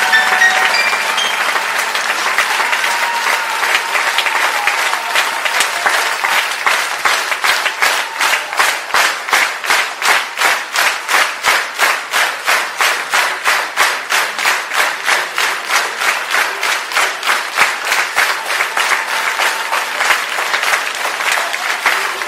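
A large crowd applauding as a song ends. After a few seconds the clapping falls into a steady unison rhythm of about three claps a second, then loosens again near the end.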